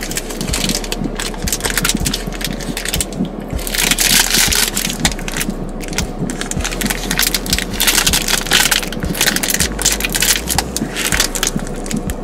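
Dry crackling and crunching from a Korean puffed-rice treat, in irregular bursts with several longer, louder stretches.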